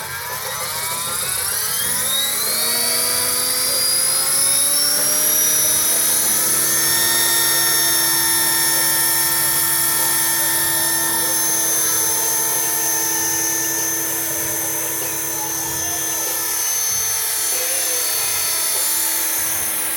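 Scale RC Jet Ranger helicopter's motor and rotor spooling up: a whine that rises in pitch over the first several seconds, then holds steady at a high pitch.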